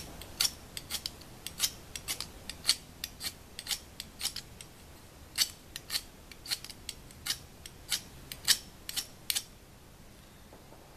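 Ferro rod (a metal fire-starter rod) scraped hard with a striker, over and over at about two or three sharp strokes a second, throwing sparks onto tinder that will not catch; the strokes stop about nine seconds in.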